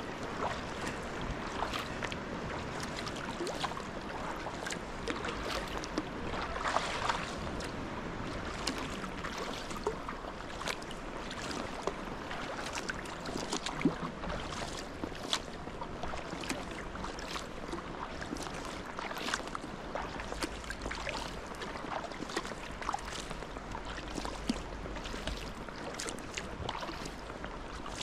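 Sea kayak paddling: paddle blades dipping and pulling through the water, with many small irregular splashes and drips over steady water noise around the hull.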